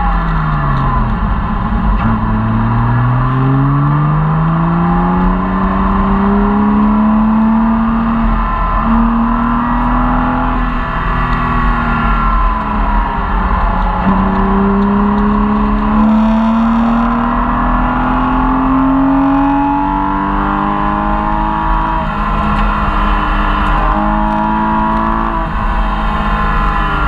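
Porsche Cayman S flat-six engine at full effort on track, heard from inside the cabin. The revs fall away in the first second, then climb in long rising pulls, dropping sharply at each gear change several times.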